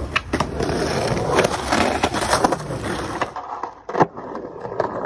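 Skateboard wheels rolling over rough concrete, with clacks of the board. Then a single loud, sharp clack of a skateboard striking the pavement about four seconds in.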